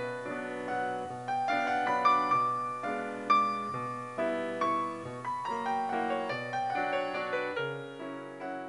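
Background piano music: a melody of struck notes, each fading after it is played, over low bass notes.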